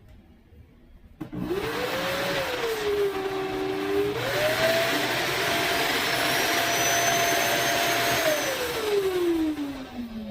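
Cordless stick vacuum cleaner's 400-watt motor switching on about a second in with a whine and a rush of air. Its pitch dips, then steps up about four seconds in and runs steady. Near the end it is switched off and winds down with a falling whine.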